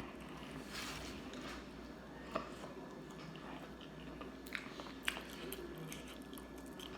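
Close-miked chewing and mouth sounds of a person eating fried chicken and fries, with a few sharp smacks or clicks.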